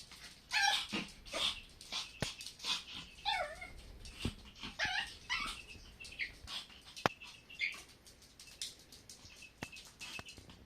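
Puppy whining in short, repeated whimpers that bend in pitch, about one a second, with a few sharp clicks between them.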